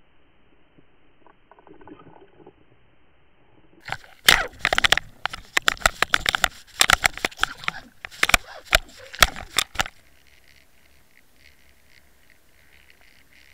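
A pike striking a swimbait in front of an underwater camera: about four seconds in, a loud burst of rapid knocks, clatter and rushing water begins as the fish thrashes on the lure and jerks the camera rig. It stops suddenly about ten seconds in, leaving a faint steady underwater hiss.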